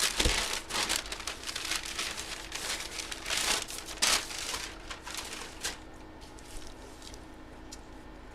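Paper wrapping and a plastic bag crinkling and tearing as they are pulled open by hand. The sound is dense for about five and a half seconds, then thins to a few faint rustles.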